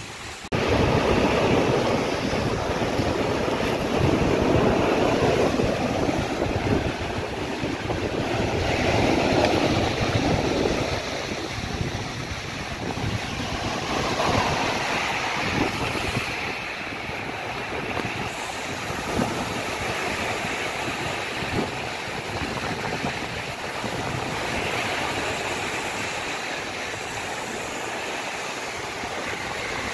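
Rough surf breaking and washing over a pebble and rock beach, swelling and easing, loudest in the first third, with wind rumbling on the microphone.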